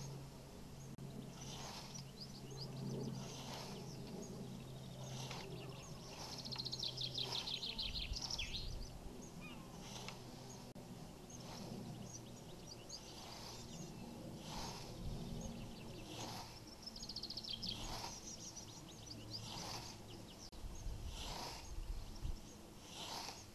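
Scythe blade swishing through long grass in repeated, evenly paced strokes, roughly one every one and a half to two seconds, with birds singing in trills.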